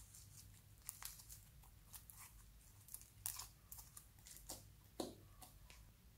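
Pink bead-filled floam slime being stretched and pulled apart by hand, giving faint, scattered sticky crackles and tearing pops. A louder, deeper pop comes about five seconds in, as the lump is dropped onto the slime in the dish.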